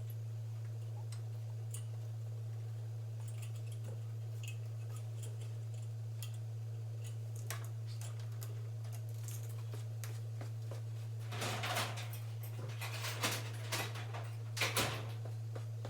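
Light clicks and handling noises of hand work disconnecting the fuel line from a Briggs & Stratton engine's carburetor, with a few louder scraping bursts near the end. A steady low hum sits underneath.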